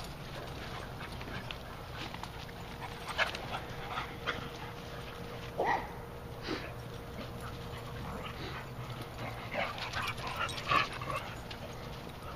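Dogs playing together, giving short, brief calls every second or so, loudest about six and eleven seconds in.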